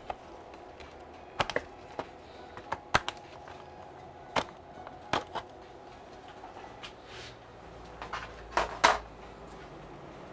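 Retaining clips of a 16-inch MacBook Pro's aluminium bottom case snapping loose as it is pried off with a plastic pry tool: a series of sharp, irregularly spaced clicks, with a couple of louder clicks and a low knock about eight to nine seconds in as the panel comes away.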